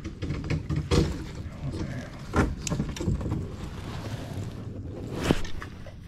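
Knocks and splashes from a kayak on the water, three of them sharp, against a steady low rumble of wind on the microphone.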